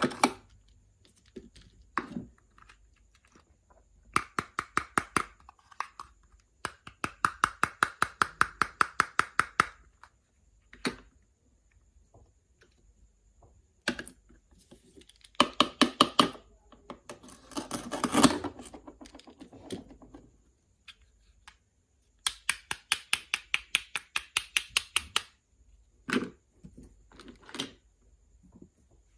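Miniature toy kitchen utensils striking in quick, even runs of about seven strokes a second, several runs a couple of seconds long, like rapid chopping or stirring, with a noisier scraping stretch in the middle.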